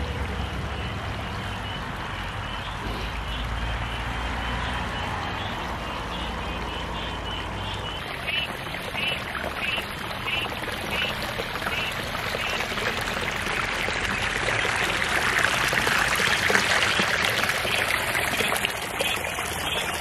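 Water running and trickling in a small creek, a steady rushing that grows louder in the second half. A short high chirp repeats about twice a second through the middle.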